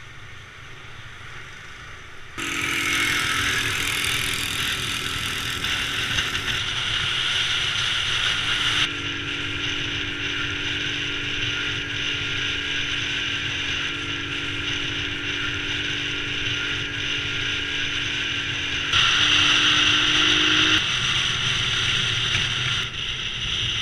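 A small motorbike being ridden: steady engine hum with road and wind noise. The sound jumps in level and tone several times as the shots change.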